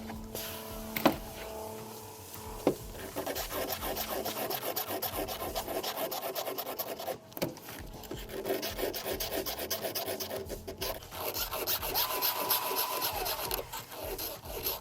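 A file rasping across the cutters of a battery chainsaw's new chain in a quick, even run of strokes with a few short pauses. This is the chain's first sharpening. A couple of sharp clicks come in the first few seconds, the first about a second in and the loudest.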